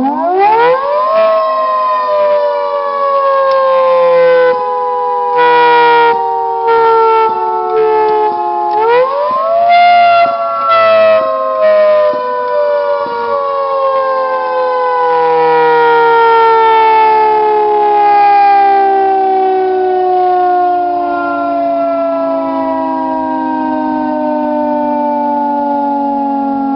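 Federal Signal 3T22 three-tone warning siren sounding a chord of tones under manual control. It winds up quickly, coasts down slowly, winds up again about nine seconds in, then winds down slowly. Several short louder pulses break into the tone while its solenoids are worked.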